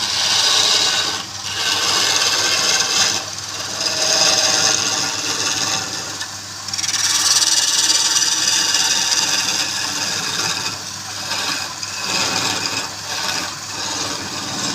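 Wood being scraped away on a spinning woodturning lathe, a rasping hiss in long swells with brief dips between passes, over a steady low hum.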